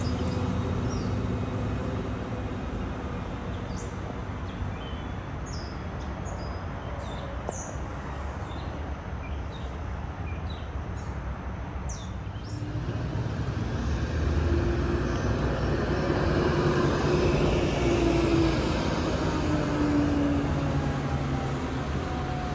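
Diesel engines of New Flyer transit buses running as the buses move through a station loop, with birds chirping over the rumble. About 13 seconds in, a second bus's engine grows louder, with a whine that rises and falls.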